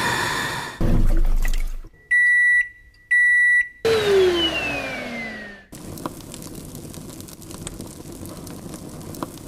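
Two short electronic beeps a second apart, after a brief low rumble, followed by a tone that slides down in pitch and then a steady noisy hiss with faint ticks.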